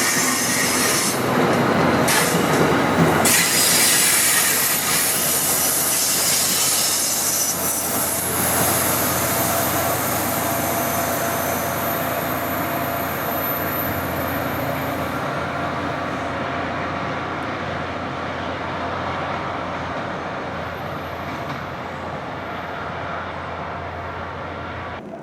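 Train going past on the tracks: wheel-on-rail noise with a strong high hiss, fading steadily as it moves away. The high hiss drops out about fifteen seconds in.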